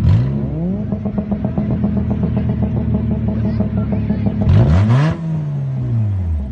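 Demolition derby car engine revving hard, then holding steady revs. About four and a half seconds in it revs up again with a brief harsh rasp, and the revs then fall away.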